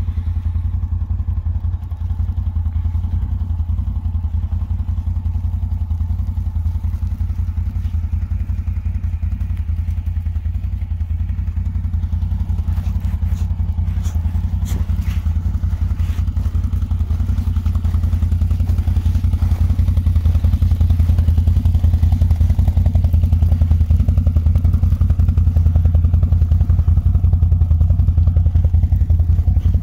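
CFMOTO CForce 850XC ATV's V-twin engine idling, a low even drone that gets a little louder about two-thirds of the way in. A few light clicks come near the middle.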